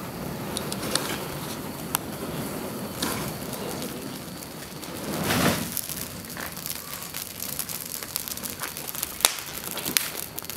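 Fire crackling as a clothed effigy on a chicken-wire frame burns, with sharp pops scattered throughout and a louder rushing swell about five seconds in.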